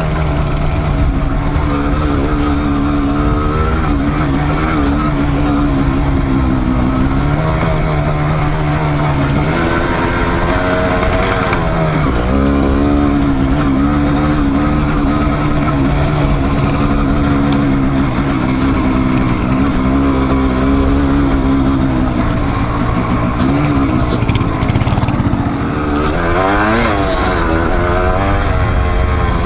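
Single-cylinder dual-sport motorcycle engine running under load on a trail ride. The revs rise and fall repeatedly, with a few quick rev-ups around 4 s, 12 s and near the end.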